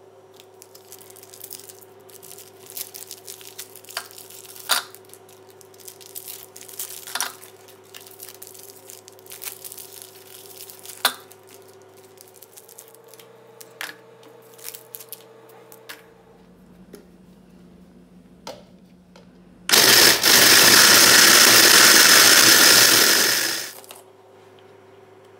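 Plastic biscuit wrappers crinkling and clicking as they are torn open, with the odd knock of biscuits dropped into a plastic chopper bowl. Near the end an electric mini chopper runs for about four seconds, grinding Lotus Biscoff biscuits into crumbs, then stops.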